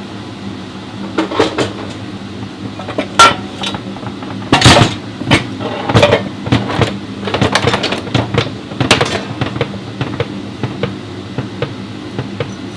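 Metal tools and parts clanking and knocking, loudest in a few sharp clanks partway through, then a run of light quick clicks, over a steady hum.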